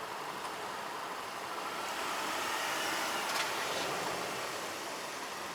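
A car driving over the level crossing: tyre and engine noise swelling to a peak about three seconds in, then easing, with a brief click about three and a half seconds in.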